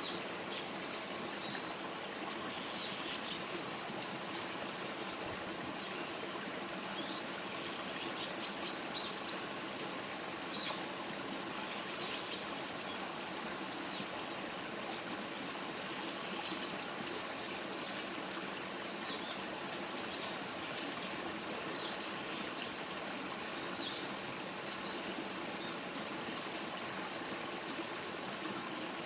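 A stream running steadily with a continuous trickling wash, with short high-pitched chirps or splashes scattered over it.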